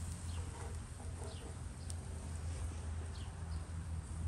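Small birds chirping in short falling notes about once a second, with hens clucking softly, over a steady low hum.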